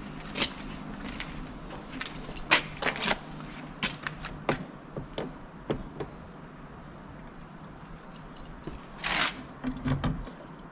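A bunch of keys jangling and clicking against the driver's door lock of a Volvo 345 as a key is worked in the lock, in a run of short metallic clicks with a brief rustle about nine seconds in. The key being tried does not turn: it is the black ignition key, not the door key.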